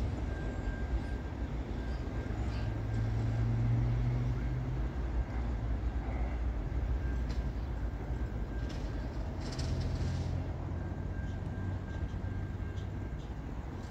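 Double-stacked container wagons of an intermodal freight train rolling along the track at a distance, making a steady low rumble that swells twice, with a few faint clicks.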